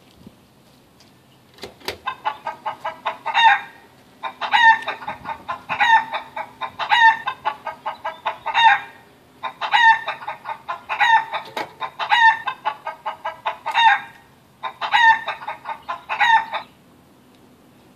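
Recorded hen clucking played through the coin-operated Chicken Machine's speaker, as sound effects from its Raspberry Pi retrofit. A sharp click comes about two seconds in, then the clucking runs in about six rounds of quick clucks with short gaps between them, stopping about a second before the end.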